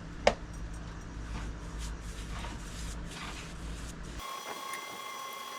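A paintbrush stroking primer onto a Masonite soffit patch, about two soft brush strokes a second after a single sharp click. About four seconds in the low background hum cuts out abruptly, leaving a faint steady high tone.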